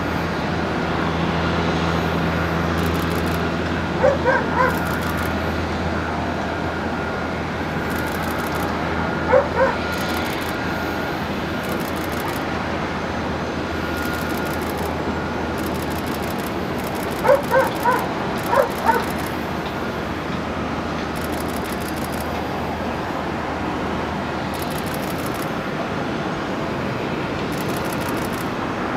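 Steady rumble of a Boeing 787-8 airliner's jet engines as it comes in and lands, with a dog barking in short bursts of two to four barks, about four seconds in, again at nine seconds, and several times around seventeen to nineteen seconds in.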